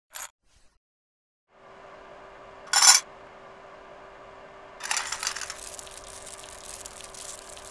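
Metal coins clink once, and then a sharp clatter about three seconds in: coins dropped into a metal frying pan. From about five seconds in, a steady crackling rattle runs as small metal magnetic balls are stirred in the pan over a low hum.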